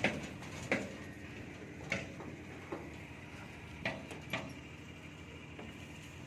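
Sharp metallic clicks and clinks of steel binding wire and reinforcing bars being tied at the rod crossings of a roof-slab mesh: about six in the first four and a half seconds, then they thin out.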